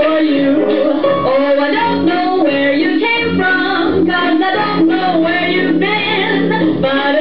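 Recorded 1950s pop song playing steadily: a woman singing over a band accompaniment.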